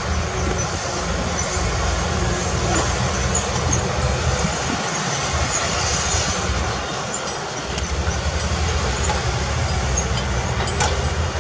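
Heavy diesel earthmoving machinery running steadily: a deep engine rumble with mechanical noise over it, and a single sharp knock near the end.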